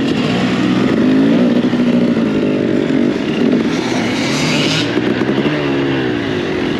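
KTM 300 EXC TPI two-stroke enduro engine revving up and down under the rider's throttle while riding a dirt motocross track.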